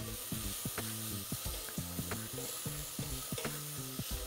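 Onions with cumin seeds and oil sizzling gently in a stainless steel saucepan over lowered heat, sweating down rather than browning. A spoon stirs them with light scraping clicks, over soft background music.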